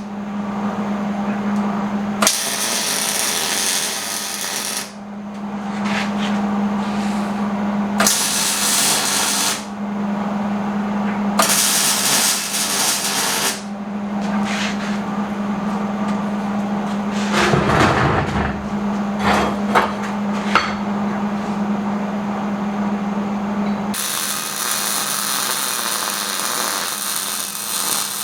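A power tool runs in a series of on-and-off bursts over a steady motor hum. Near the end the hum stops and a different steady noise carries on.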